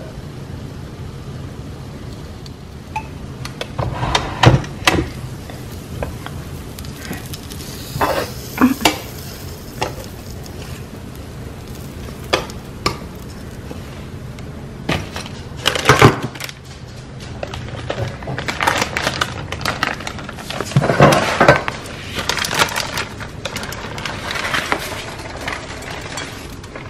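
Metal tongs and a flip waffle maker clinking and knocking as the lid is opened and a cooked waffle is lifted off the plates, in scattered sharp clinks with a busier cluster of clatter past the middle. Beneath it runs a steady faint hiss.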